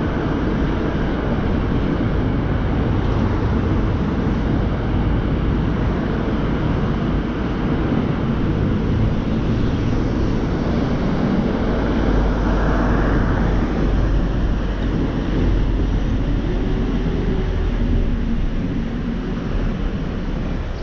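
A car driving on city streets: steady engine and tyre noise with a low rumble. The noise swells briefly about twelve seconds in, and the rumble is heavier for several seconds after.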